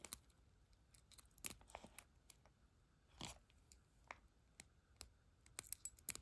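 Faint, scattered small metallic clicks and scrapes as a JJ brooch's pin back is worked: the pin stem is moved and fastened into its catch, a test that the pin works. A little cluster of clicks comes near the end.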